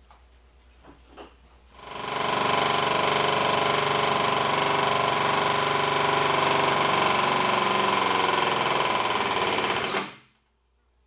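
Cut-open small single-cylinder engine running steadily and hard with no oil in its crankcase. After a few faint clicks it starts about two seconds in, then cuts off suddenly near the end.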